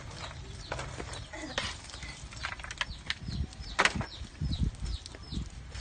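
Irregular splashing, clicks and clatter of shallow pond water and plastic trays as red claw crayfish are scooped and handled, over a low rumble from the handheld microphone.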